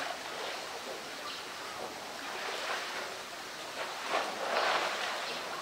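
Pool water splashing and sloshing as a polar bear swims with a floating plastic barrel, with a louder swell of splashing about four and a half seconds in.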